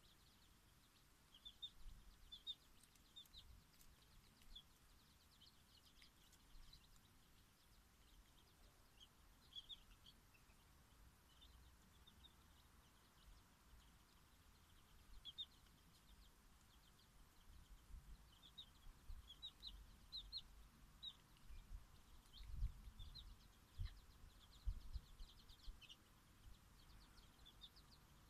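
Faint peeping of bantam chicks, short high calls coming in little runs. A few low thumps come in the second half.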